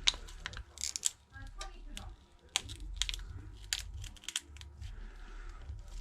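Irregular small clicks and ticks of a pry tool working under the edge of a cracked phone screen, prying it up from the frame.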